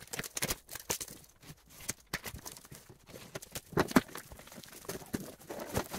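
Plastic courier wrapping being torn open and pulled off a cardboard box, in irregular rips and crinkles.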